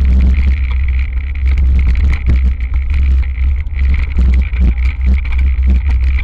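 Wind rumbling on the microphone over the rattle and clatter of a hardtail mountain bike descending a dirt trail, with frequent short knocks as it hits bumps.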